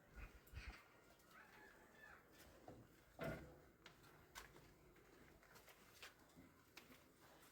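Near silence: quiet room tone with a few faint clicks and knocks, the loudest about three seconds in.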